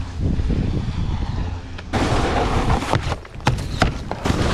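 Snowboard riding over snow with wind buffeting the helmet-mounted camera's microphone. About two seconds in, a loud hiss of the board scraping across the snow. Near the end come several sharp knocks as the board strikes and slides onto a terrain-park box.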